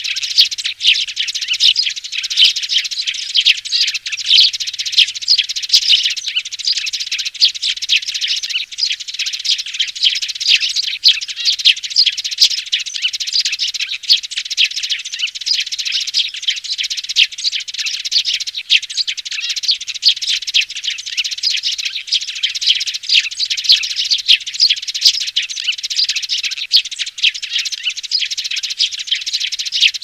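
Young sparrows chirping in a dense, unbroken chorus of rapid, overlapping chirps. It is a lure recording of juvenile sparrow calls, the kind played through a loudspeaker to draw sparrows down to a trap.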